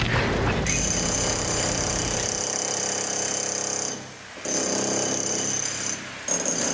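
A shrill, steady alarm-like tone starting about a second in, cutting out briefly twice and resuming each time.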